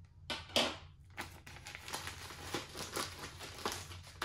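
Clear plastic zip-top bag crinkling as it is opened and the manual is pulled out: two loud crackles about half a second in, then steady rustling.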